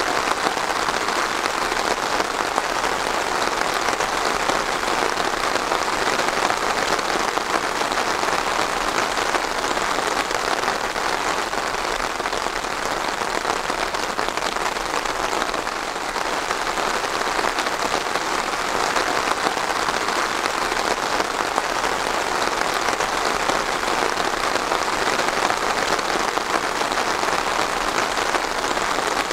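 Steady, even rain falling on a surface.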